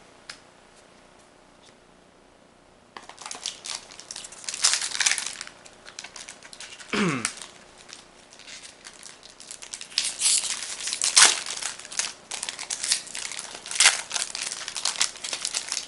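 Foil wrapper of a Magic: The Gathering booster pack crinkling and tearing as it is ripped open by hand, in irregular crackling bursts that start about three seconds in and go on to the end.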